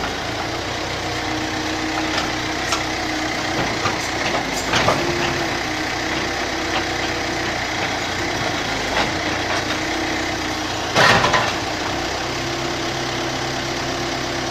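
Excavator's diesel engine running steadily at a low idle, with a few sharp knocks over it; the loudest comes about eleven seconds in.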